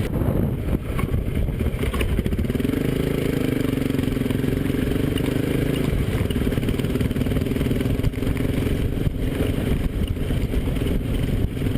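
Motor vehicle engine running steadily, its pitch stepping up slightly about two and a half seconds in.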